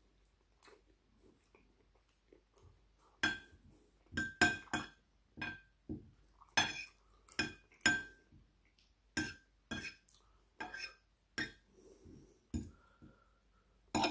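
Metal fork clinking and scraping against a ceramic plate while picking up food: an irregular string of sharp clinks, each with a short ring, beginning about three seconds in.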